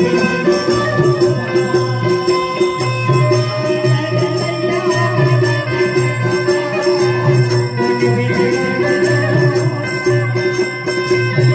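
Indian devotional folk music with a steady beat: held melodic notes over shaken, jingling percussion.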